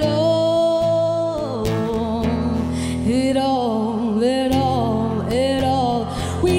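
Female lead vocalist singing live with band accompaniment and acoustic guitar: a long held note, then wordless melismatic runs.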